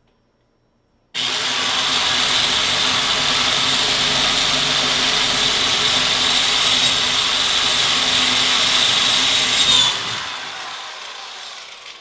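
Power drill boring a hole up through the wooden bottom of a kitchen cabinet: it starts suddenly about a second in, runs steadily for about nine seconds, then trails off near the end.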